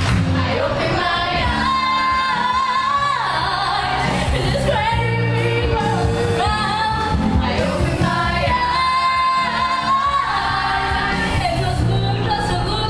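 Show choir singing a song together over accompanying music with a steady bass line, heard through the stage's sound system.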